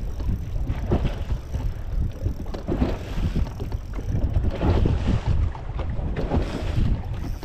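Wind buffeting the microphone on a fishing boat, with water slapping and splashing against the hull in irregular surges.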